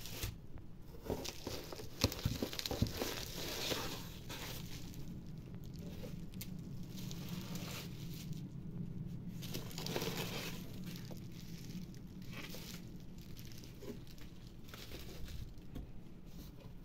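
Bubble wrap crinkling and rustling in irregular flurries as bubble-wrapped box blanks are handled and lifted out of a cardboard carton, with a few sharp crackles in the first three seconds.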